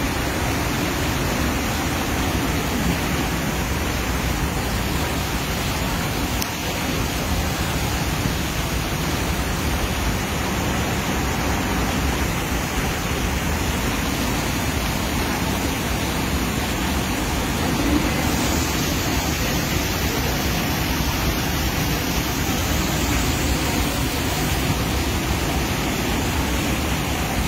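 Muddy floodwater rushing past in a torrent, a loud, steady rush of water.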